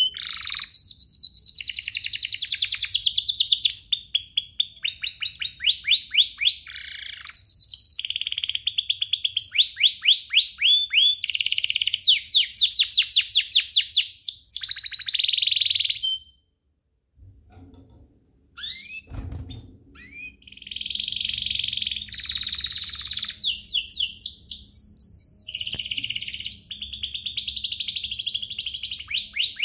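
Domestic canary singing long, fast trills and rolls. The song breaks off for about two seconds past the middle, a single low knock follows, and then the singing resumes.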